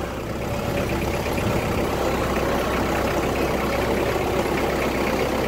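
Kubota compact tractor's diesel engine running steadily while the tractor drives, heard close up from the driver's seat, picking up slightly over the first second or two.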